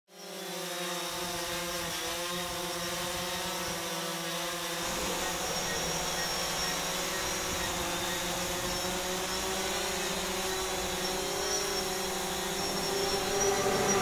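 An aircraft in the sky, heard as a steady buzzing hum made of several pitched tones; about five seconds in, the tones begin to waver in pitch.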